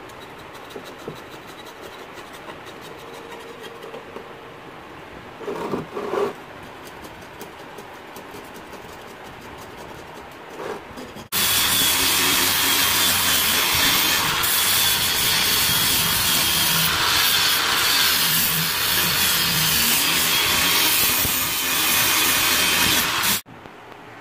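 Electric angle grinder with an abrasive disc grinding rust off a steel mason's trowel blade, a loud steady grinding with a high whine that starts suddenly about eleven seconds in and cuts off near the end. Before it, light handling knocks on the workbench.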